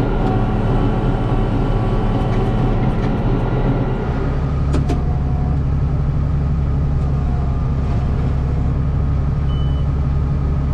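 Case IH 7120 tractor's six-cylinder diesel engine running steadily; its low note shifts and settles about four seconds in.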